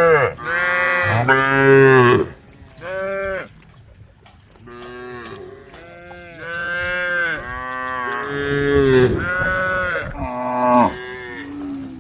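A herd of cows mooing, several animals calling one after another and overlapping at different pitches, with long drawn-out moos and a short lull about a third of the way in.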